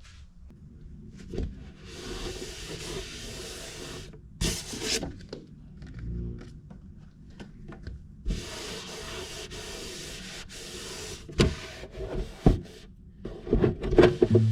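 Rubbing noise in two long stretches, with a few sharp knocks in between and near the end.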